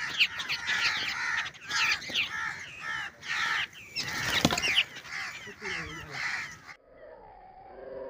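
A flock of babblers chattering with harsh, rasping calls in quick succession, with one sharp snap about halfway through as the net trap falls. The calls stop abruptly near the end.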